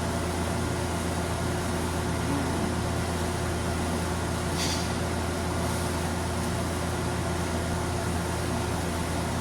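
Steady low machine hum, even and unbroken, with a brief soft hiss about four and a half seconds in.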